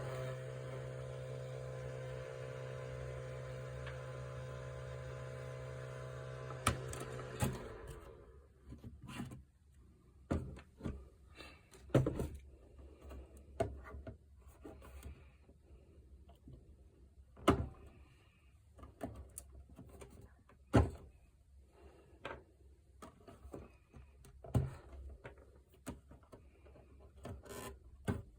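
A steady hum of several held tones that cuts off about seven and a half seconds in, followed by irregular clicks, knocks and rubbing of hands and tools working on a plastic battery charger casing during disassembly.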